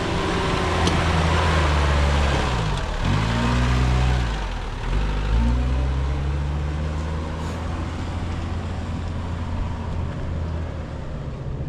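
Engine of a Nissan 4x4 climbing a steep off-road slope under load. Its revs dip and pick up again twice in the first few seconds, then hold steady while the sound fades as the vehicle pulls away.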